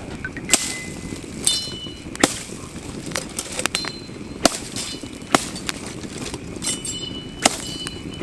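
A hatchet chopping firewood: sharp strikes about one a second, several of them followed by a short, high metallic ring.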